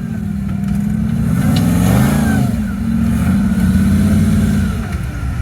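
Off-road vehicle's engine running under load, revving up and back down about two seconds in, then holding a steady note.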